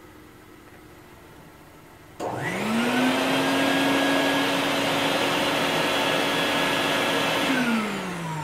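Bucket Head wet/dry vacuum powerhead on a 5-gallon bucket switched on for a short test run, drawing air through a cyclone dust collector. About two seconds in its motor spins up with a rising whine and runs steadily for about five seconds. Near the end it is switched off and winds down with a falling whine.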